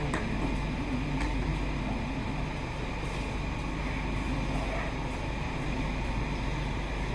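Stockholm metro train running with a steady low rumble and a wavering hum.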